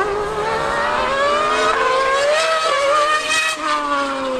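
Engines of a Mercedes Formula One car and a Yamaha R1M superbike at racing speed. The pitch climbs under acceleration, then falls steadily from about three and a half seconds in.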